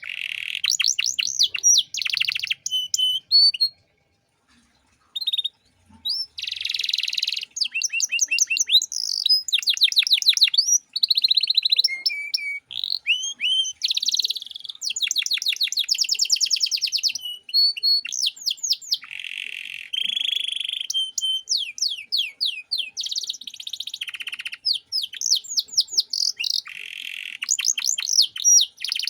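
Domestic canary singing a long, varied song of fast trills, rapid repeated notes and rolls, with a short pause about four seconds in.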